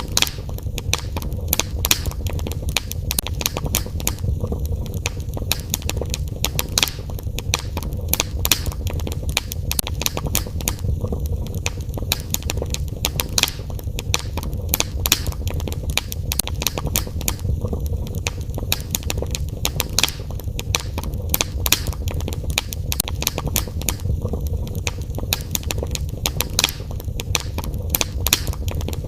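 Fire crackling in a fireplace: frequent, irregular sharp pops and snaps over a steady low rumble.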